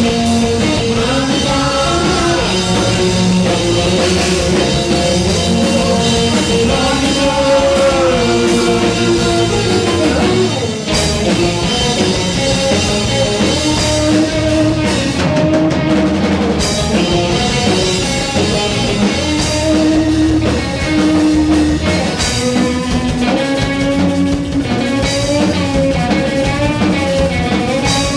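Rock band playing a song live, with drum kit and guitars and a melodic line that bends in pitch.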